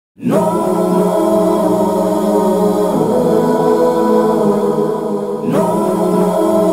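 Wordless background chorus of voices humming sustained chords, shifting to a new chord about three seconds in and again about five and a half seconds in.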